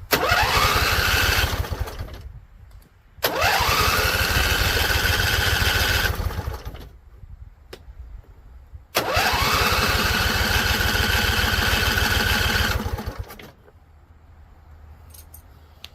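Husqvarna Z254 zero-turn mower's engine being cranked by its electric starter three times, each try two to four and a half seconds long, the starter's whine rising as it spins up and then cutting off sharply. The engine, primed with carburetor spray in a no-start diagnosis, does not keep running.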